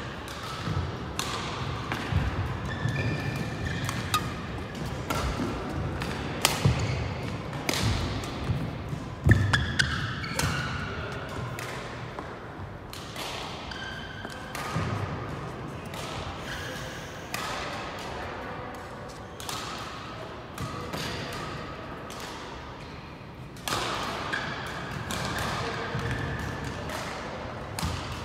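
Badminton rally: sharp racket hits on a shuttlecock, shoes squeaking briefly on the court mat, and footsteps thudding, with the hits coming irregularly and the loudest about nine seconds in.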